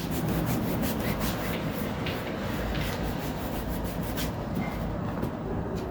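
Hand scrubbing and rubbing on a dirty computer-case mesh dust filter, a continuous scratchy wiping with many short irregular strokes.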